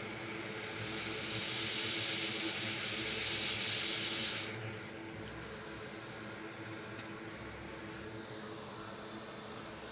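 A jet of air hissing steadily as it blows flux residue off a logic board, cutting off sharply after about four and a half seconds. A steady hum from a running fume-extractor air filter sits underneath, with one faint click about seven seconds in.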